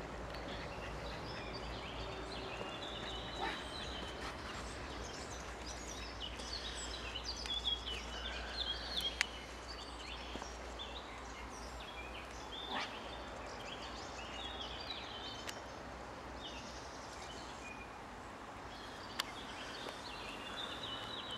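Small birds chirping and twittering intermittently over a steady low background noise, with a few sharp clicks scattered through.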